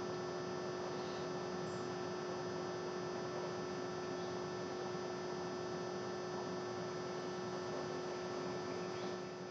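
Steady electrical hum with a constant tone over a background hiss, the noise floor of the recording setup.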